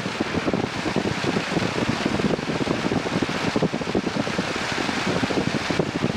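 Piper Cub's engine and propeller running steadily in flight, heard from inside the cockpit as a fast, even drone mixed with rushing air.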